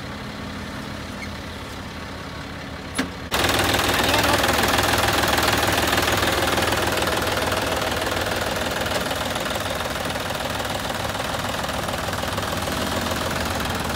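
John Deere tractor's diesel engine running steadily. There is a sharp click about three seconds in, and just after it the engine sound turns suddenly louder and noisier and stays that way.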